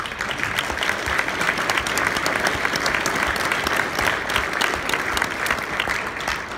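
Audience applauding: many people clapping at once, starting suddenly and dying away near the end.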